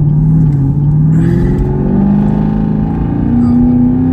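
Supercharged 6.2-litre LT4 V8 of a Chevrolet Camaro ZL1 accelerating hard, heard from inside the cabin, its pitch climbing in several steps.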